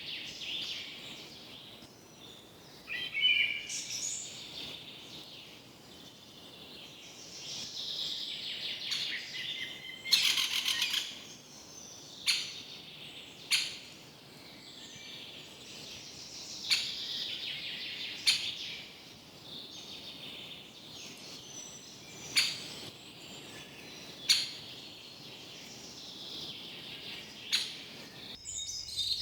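Several forest birds singing and calling over a faint steady background hiss. The calls overlap, with a rapid trill about ten seconds in and a scattering of short sharp notes.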